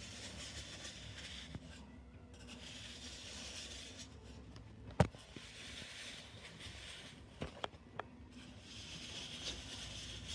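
Cups being slid and shuffled across a tabletop: repeated stretches of rubbing and scraping, with one sharp knock about five seconds in and two lighter taps a little later.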